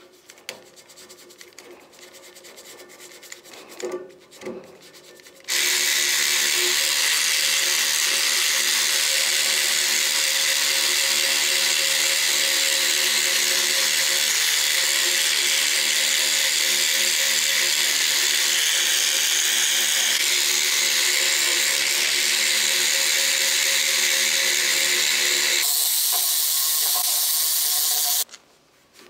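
A small handheld electric scrubbing tool runs steadily with a constant whirring hum and hiss as it is worked over a burn-marked copper radiator pipe. It switches on suddenly about five seconds in and cuts off just before the end, after a few seconds of quieter rubbing and knocks at the start.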